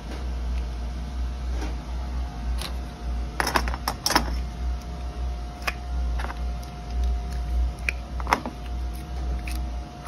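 Light metal clicks and taps as a pocket knife and spring clamps are handled, a quick cluster about three and a half seconds in and then single clicks every second or so. Under them runs a steady low shop hum with a faint steady whine.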